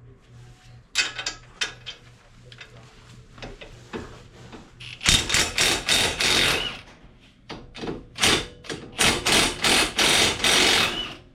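Impact wrench hammering in rapid bursts: a short one about a second in, then two long ones of about two seconds each, around five and nine seconds in, each ending in a brief whine.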